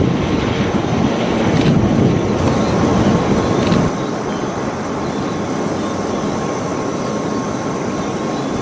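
A formation of military aircraft flying over, heard as a steady rushing rumble that drops abruptly to a lower level about four seconds in.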